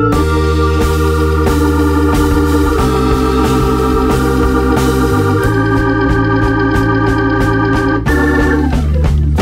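Background music: sustained organ chords over a bass line, the chords changing every two to three seconds.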